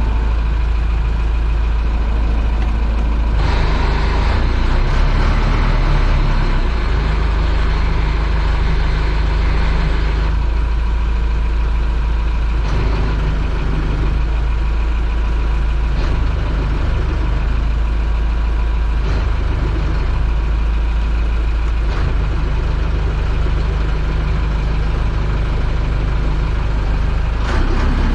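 Boat engine running at low speed during close manoeuvring, a steady rumble that grows louder and brighter for several seconds a few seconds in, then settles back.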